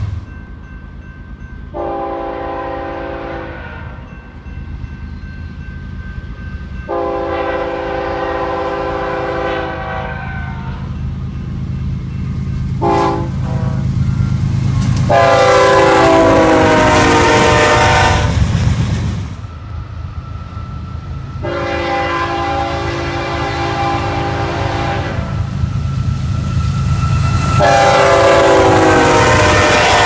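Nathan Airchime K5HL five-chime horns on GE freight locomotives blowing long, long, short, long, the grade-crossing signal, the last long blast dropping in pitch as the locomotive passes; then two more long blasts, the second also falling in pitch. Underneath, the steady rumble of the passing freight train.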